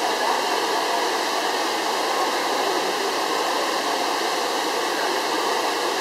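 Water of the Trevi Fountain pouring over its rock cascades into the basin: a steady, even rush.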